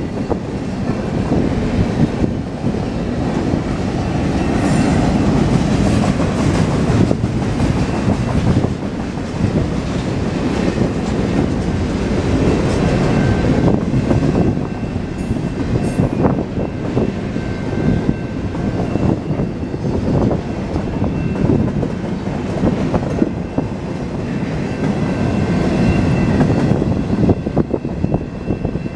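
Double-stack container train rolling past: its well cars rumble steadily, with wheels clattering over the rail joints. A faint, thin, high squeal comes in now and then.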